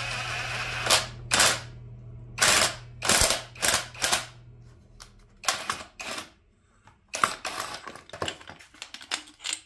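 A steady hiss that stops about a second in, then about a dozen sharp metallic clacks and knocks in irregular succession as parts of a Bilstein shock absorber are handled and knocked apart.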